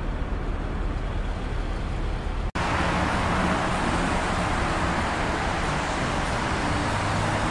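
A steady low rumble, then, after a sudden cut about two and a half seconds in, road traffic: steady tyre hiss and engine hum from cars and a dump truck passing on a multi-lane highway.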